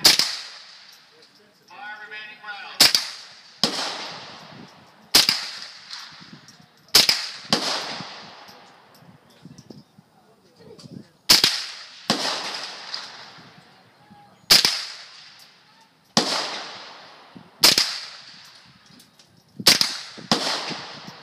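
.22 rimfire AR-style rifle firing about a dozen single shots, spaced one to three seconds apart, each a sharp crack with a trailing echo.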